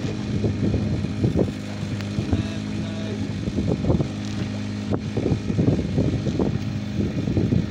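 An engine aboard a fishing boat running steadily with a low hum, with irregular light knocks and thumps over it.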